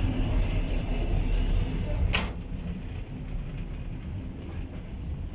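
Steady low rumble of a moving passenger train carriage. About two seconds in, a single sharp click of a door latch, after which the rumble is somewhat quieter.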